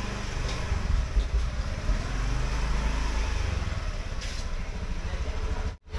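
Steady traffic noise from motorbikes, mostly a low drone with no clear single engine note; the sound cuts out briefly just before the end.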